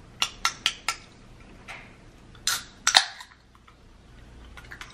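An aluminium can of sparkling water being handled: four quick light clicks in the first second, then two loud sharp cracks about half a second apart, each followed by a short hiss.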